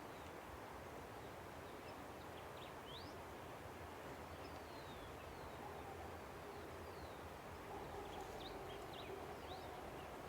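A river rushing steadily, with small birds giving short, thin chirps and whistles now and then over it. A faint steady hum comes in past the middle.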